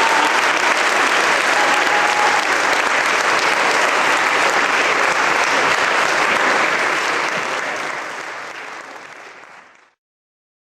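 Audience applauding in a church, a steady clapping that fades out over the last few seconds and stops shortly before the end.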